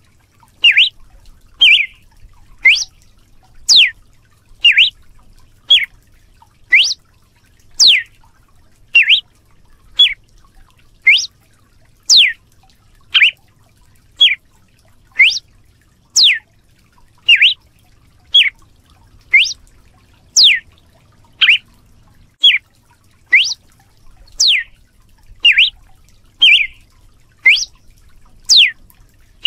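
Red-cowled cardinal (galo-de-campina) giving its 'açoite' (whip) call: short, sharp notes repeated about once a second, alternately sweeping up and down in pitch.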